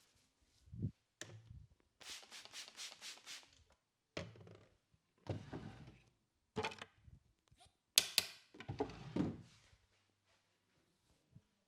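Sharp cracks, slaps and thumps of a barber's percussive head massage: single hits and a quick run of about six pats a second, the loudest a sharp crack about eight seconds in.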